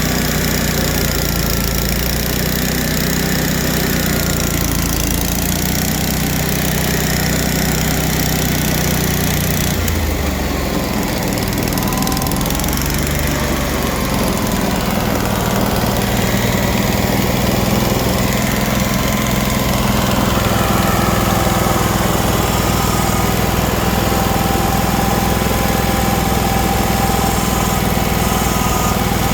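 Vermeer SC252 stump grinder's engine running steadily. Its speed changes about ten seconds in, and it runs a little louder from about sixteen seconds on.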